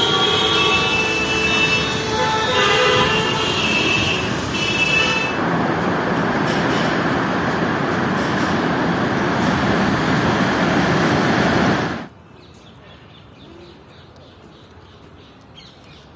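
Busy road traffic with several vehicle horns honking over engine noise, then a steady rush of traffic. About twelve seconds in it cuts off abruptly to faint outdoor background.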